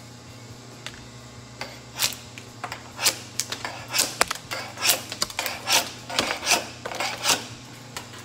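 Hand paint scraper scraping and flaking failed paint off a ferrocement (concrete) hull in about a dozen short, quick strokes, starting about two seconds in. The paint has blistered and lifts easily because moisture in the concrete got under it.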